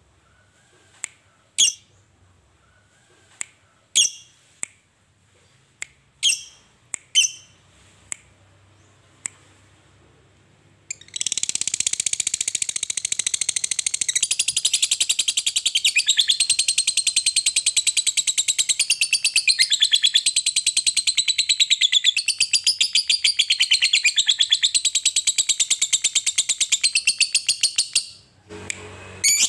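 Lovebird giving short, scattered chirps, then about eleven seconds in breaking into a long, unbroken, very fast chattering trill, the 'ngekek' song, which runs for about seventeen seconds and stops near the end.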